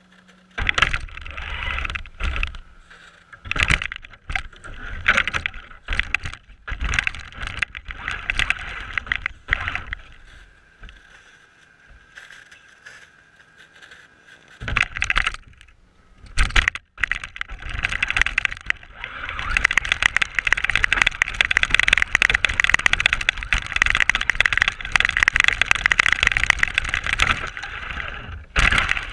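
Traxxas RC car's motor and drivetrain whining in short bursts of throttle during the first ten seconds or so, then running almost continuously for the last dozen seconds as it drives through snow, heard from a camera mounted on the car.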